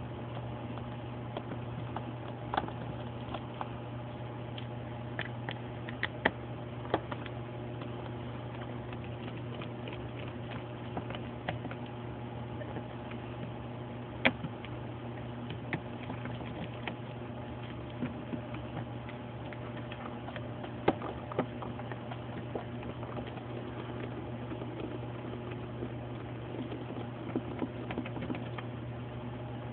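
Small screwdriver taking the tiny screws out of a Samsung Moment phone's back housing: scattered light clicks and ticks of the driver tip and screws, irregular and spread throughout, over a steady low hum.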